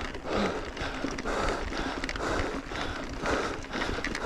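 A mountain biker breathing hard, winded from a steep climb: rhythmic, noisy panting at about two breaths a second, with a low rumble underneath.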